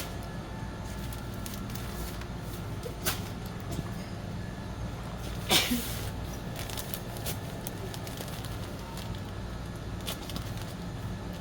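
Steady low hum of a shop's background with scattered small clicks and knocks of goods being handled, the loudest a sharp knock about five and a half seconds in.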